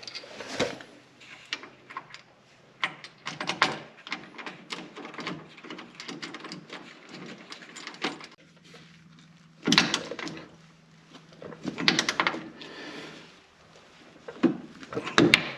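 Irregular clicks, clinks and knocks of hand tools and metal hardware being handled while an ice scratcher is bolted to a snowmobile's rear suspension slide rail, with louder clusters of knocks about ten and twelve seconds in. A faint steady hum runs underneath.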